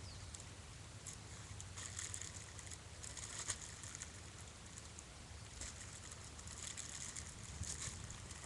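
Paint being splattered onto a painting surface: faint, irregular patters and splashes, several short bursts a second or so apart, over a low steady rumble.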